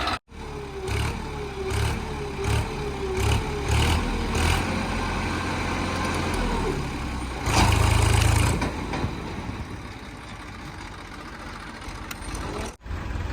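Heavy diesel engine of earthmoving machinery running under changing load, with a pulsing low rumble and a louder rev about seven and a half seconds in. The sound drops out briefly just after the start and again near the end.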